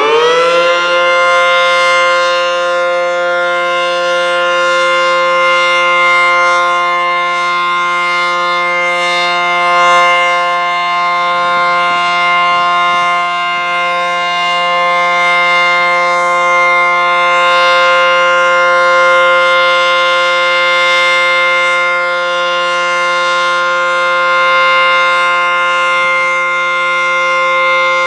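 ACA Banshee 115 tornado siren finishing its wind-up, its pitch rising until it levels off about half a second in. It then holds a loud, steady, chord-like tone at full speed.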